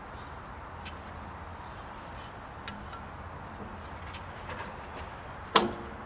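A screwdriver prying a worn V-belt off the metal idler bandwheel of a bandsaw sawmill: faint small clicks, then about five and a half seconds in a single sharp metallic clank with a brief ring as the belt comes off the rim.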